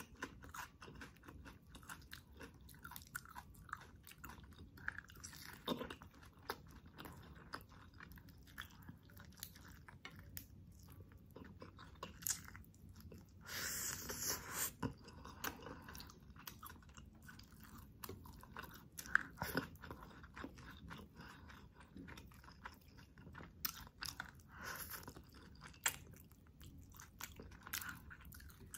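A person chewing and biting food close to the microphone, eating a chicken adobo meal with rice by hand: an irregular run of small wet clicks and crunches, with a louder stretch of biting about fourteen seconds in.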